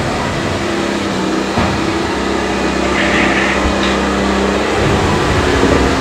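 A motor running with a steady hum, with a brief high chirp about three seconds in.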